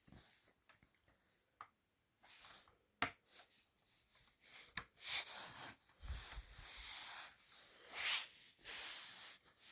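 Hands handling a plastic LEGO model car: rubbing and scraping of bricks with a few sharp clicks.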